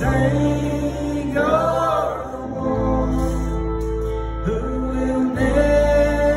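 Worship song played live: a man singing long held notes over a strummed acoustic guitar, with a steady low bass underneath that shifts pitch with the chord changes.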